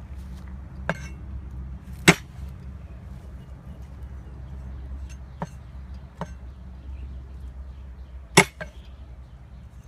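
Cleaver chopping garlic on a thick round wooden chopping board: about six sharp chops at irregular intervals, two of them much louder, over a steady low rumble.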